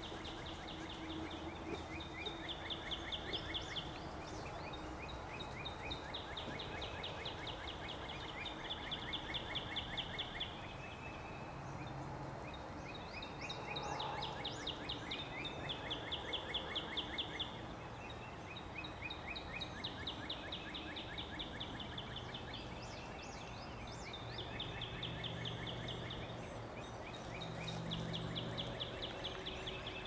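A chorus of frogs calling from the pond: many overlapping rapid, pulsing trills, each a second or two long, in two pitches, going on without a break.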